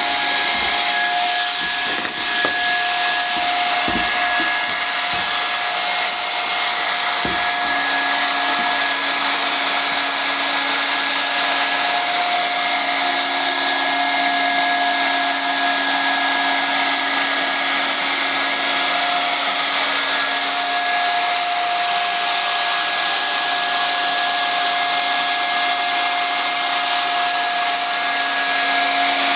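Hot-air blower and drive motor of a BAK MicOn semi-automatic overlap welder running steadily during welding: a loud, even hiss of hot air with a steady motor whine.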